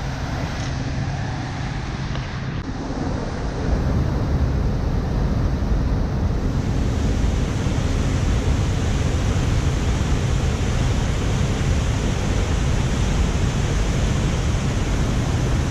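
Waterfall and white-water river rushing through a narrow rock gorge, a steady roar that grows louder about four seconds in.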